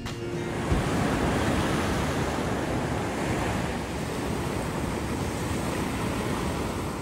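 Ocean surf breaking and washing up on a sandy beach, with wind rumbling on the microphone. The sound swells up in the first second, then holds steady.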